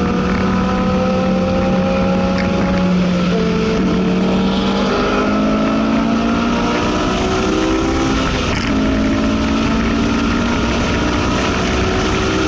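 Honda S2000 AP2's 2.2-litre four-cylinder engine, heard from inside the cabin, pulling hard under track acceleration. Its pitch climbs through the revs and drops at upshifts about three seconds in and again near nine seconds, over steady wind and road noise.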